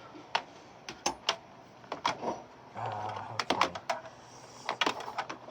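Scattered light clicks and knocks from handling the plastic body of a Bissell PowerForce Helix upright vacuum cleaner while it is readied to be plugged in.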